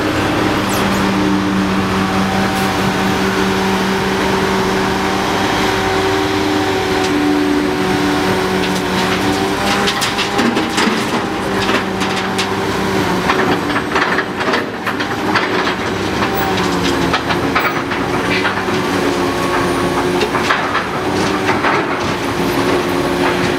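Heavy diesel engines running with a steady hum. From about ten seconds in, a run of sharp metallic clanks and rattles sounds over the engine noise.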